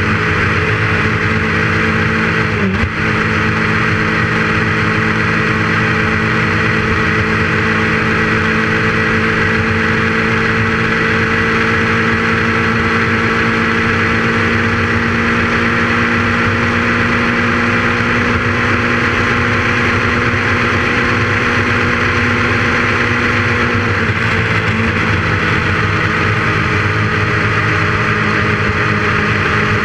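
Motorcycle engine running steadily at cruising speed, with wind and road noise over it. Its pitch dips briefly about three seconds in and shifts again about four-fifths of the way through.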